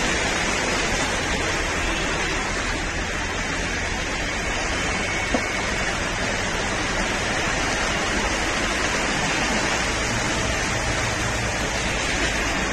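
Steady rushing noise of water from heavy rain and muddy floodwater running through a flooded street, with one short click about five seconds in.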